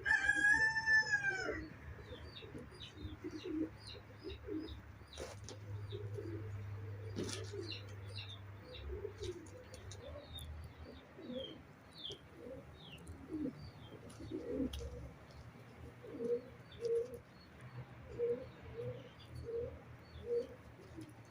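A rooster crows once at the start. Pigeons then coo in runs of low repeated notes while small birds chirp.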